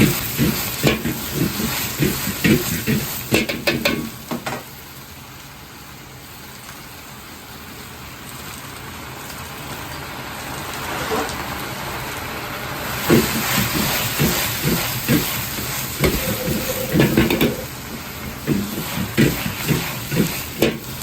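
Stir-frying in a wok: a metal ladle scraping and knocking rapidly against the wok over sizzling food. After about four seconds the clatter stops and only a steady sizzle remains, slowly growing louder, until the ladle strikes start up again in the second half.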